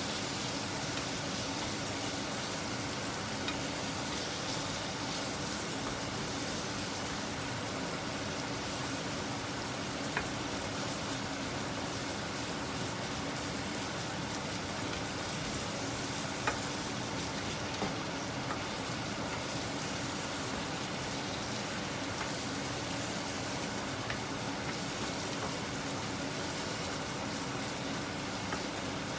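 Pork frying in oil in a pan, a steady sizzle over a faint low hum, with a few light clicks about ten and sixteen seconds in.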